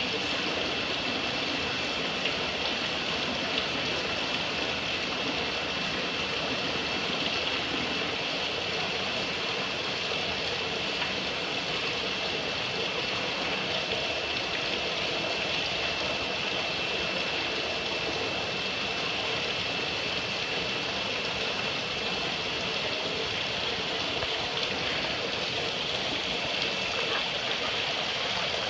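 Steady rush and trickle of water flowing through fish-hatchery egg jars and spilling over into the fry tank. A faint, steady high-pitched tone runs under the water.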